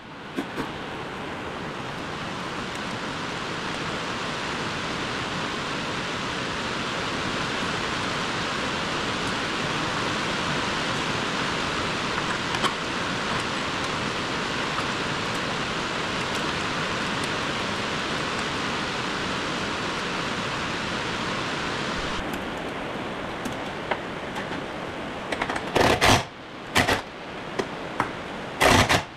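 Steady rushing hiss, with several short, sharp metallic clatters of hand tools near the end.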